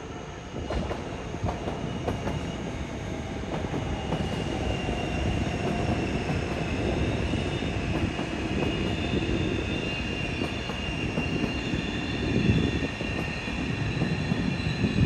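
Locomotive-hauled NS Intercity train rolling past with a steady rumble and wheels clicking over the rail joints. A thin high wheel squeal sets in about four seconds in and carries on.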